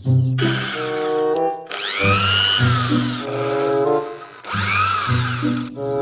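A power drill whining in three bursts over background music with brass-like notes; in the later bursts the whine rises and falls in pitch.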